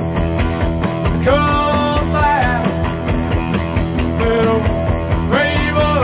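Background rock music with a steady beat and pitched melodic phrases over it.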